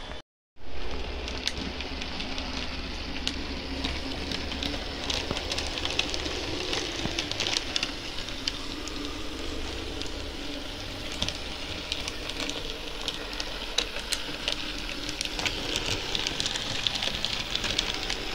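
Model railway diesel locomotive running along the track with its wagons: a steady whirring hiss from the motor and wheels, with a stream of small clicks as the wheels cross rail joints and points. It starts after a split-second gap.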